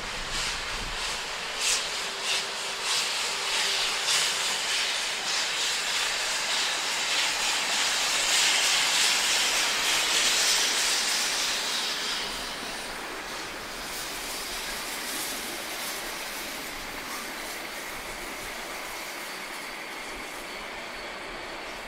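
Harz metre-gauge steam locomotive hauling a train of coaches past. Separate exhaust beats at first build to a loud hissing rush as the engine goes by, about eight to twelve seconds in. Then comes the quieter steady sound of the coaches rolling past.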